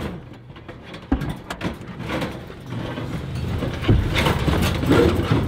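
A van's engine rumbling, with a few knocks and rattles inside the cabin. The engine grows louder from about four seconds in.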